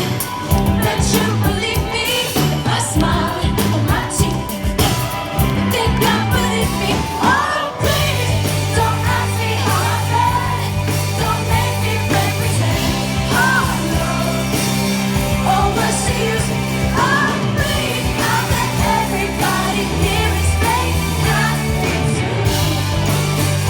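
Live pop-rock band playing, with a sung lead vocal over drums and bass guitar. Drums hit densely for about the first third, then sustained bass notes carry under the singing.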